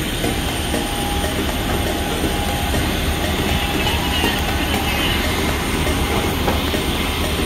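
Steady machinery noise on an airport apron beside a parked airliner: a continuous low rumble with a thin, high, steady whine.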